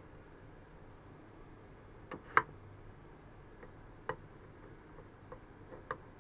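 Metal T-slot screws clicking and tapping against the metal milling plate as they are fitted by hand: about six light, sharp clicks spread out, the loudest a little over two seconds in.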